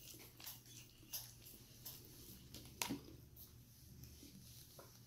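Quiet eating sounds: faint chewing and mouth clicks from eating noodles, with one sharper click nearly three seconds in.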